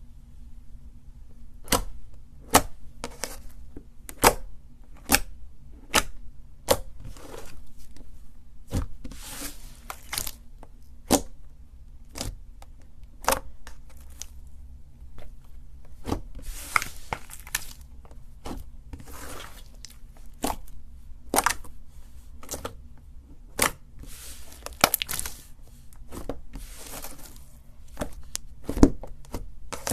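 Slime being squeezed and poked by hand: irregular sharp pops and clicks, about one or two a second, with short stretches of crackling.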